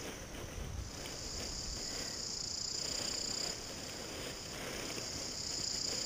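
Insects buzzing in one steady, high, even tone that grows stronger about a second in and eases a little past the middle, over faint rustling of paraglider lines and fabric being handled.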